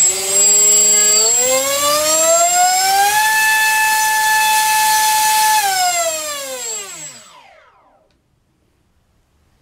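Turnigy 2826-6 2200 kV brushless outrunner motor spinning a 5x5 TGS propeller on a 4-cell battery: a high whine that climbs in two steps as the throttle is opened and holds steady at full throttle for about two seconds. It then falls away as the motor is throttled back, spinning down and stopping about eight seconds in.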